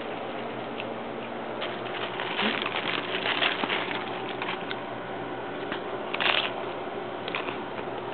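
Someone eating hard-shell tacos fast: crackly crunching and rustling in irregular clusters, with a sharper crunch about six seconds in, over a steady low hum.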